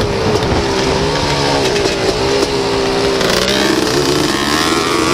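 Racing ATC three-wheeler engine running hard, heard from on board, with rushing noise over it. The engine note holds steady, drops about three seconds in as the throttle comes off, then starts rising again near the end.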